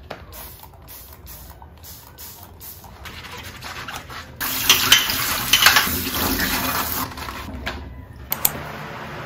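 Dishwashing at a stainless steel kitchen sink: quiet sponge scrubbing in short clips, then water from the tap running loudly into the sink for about three seconds, and two sharp knocks near the end.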